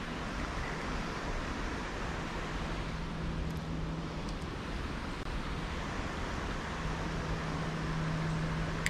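Steady rushing background noise with a low motor hum that comes in about two seconds in, fades out around four seconds and returns near seven seconds.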